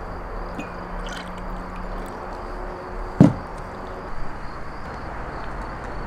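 A clay jug set down on a wooden table with a single dull knock about three seconds in, followed a second later by a few light clicks, over a steady outdoor background hiss.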